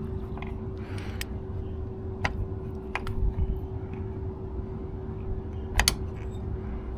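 A few sharp clicks and light knocks from parts and tools being handled during reassembly, including a quick double click near the end, over a steady low hum.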